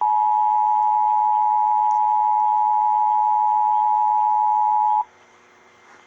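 Emergency Alert System two-tone attention signal: two steady tones sounding together for about five seconds, then cutting off suddenly, the alert sound that heralds a tornado warning message.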